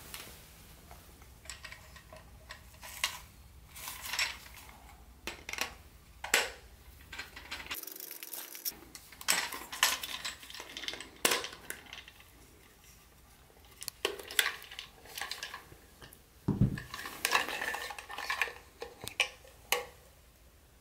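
Irregular plastic clicks, taps and rattles of a toy steam train's plastic tender being handled while its battery compartment is unscrewed and its cover taken off with a small screwdriver. There is a dull knock about two-thirds of the way through.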